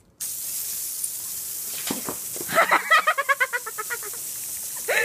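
Garden hose spraying water in a steady hiss, with a short run of rapid, pitched vocal sounds about halfway through.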